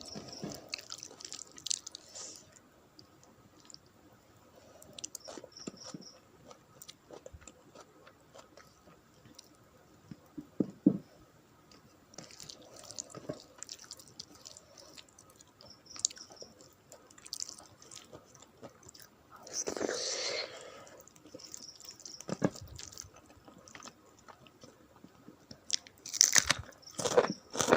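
Close-miked chewing and wet mouth sounds of someone eating a rice and curry meal, with scattered sharp clicks, a longer, louder mouth noise about twenty seconds in, and a quick run of bites near the end.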